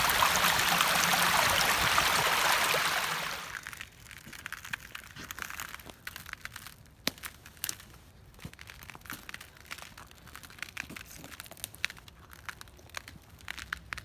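Shallow creek water rushing over rocks, which cuts off about three and a half seconds in. Then footsteps crunching irregularly over frozen leaf litter and ice on the forest floor.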